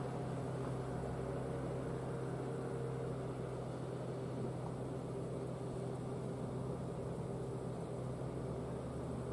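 Faint, steady tones of distant outdoor warning sirens sounding over a constant low hum and background noise.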